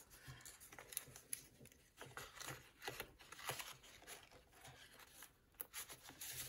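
Faint rustling and crinkling of paper as washi tape sample cards are handled and slid out of a paper wrapping, in short irregular scratches.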